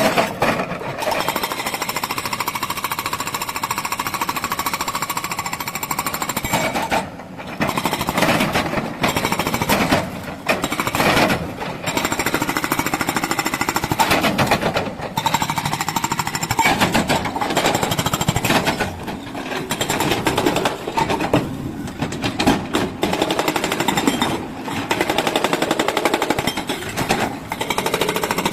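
Excavator-mounted hydraulic breaker hammering on rock. It strikes rapidly in long runs, broken by a few brief pauses.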